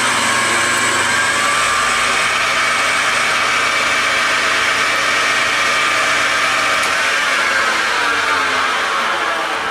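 Metal lathe running at about 1550 RPM on an aluminum pulley with a steady whine. About seven seconds in, the motor is switched off and the spindle coasts down, its pitch falling.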